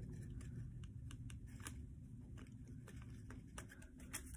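Notebook paper being handled and pressed into a fold: faint, irregular crinkles and small clicks of paper, over a steady low hum.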